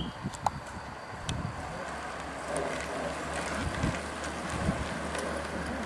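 Wind on the microphone over outdoor roadside noise, with a low steady hum setting in about two seconds in.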